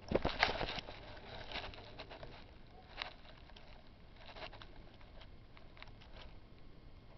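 A cat and a lizard scuffling: a quick flurry of scratchy taps of claws on a hard surface in the first second, then scattered light taps and scratches.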